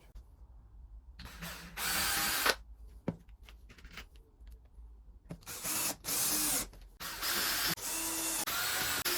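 Power drill running in several short trigger bursts, then a longer run broken by brief stops near the end.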